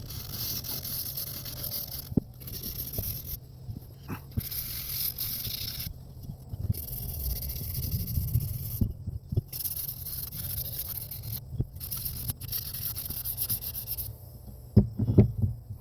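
Sandpaper scraping over a steel axe head in repeated strokes of one to two seconds with short pauses between them, with a few knocks, louder near the end.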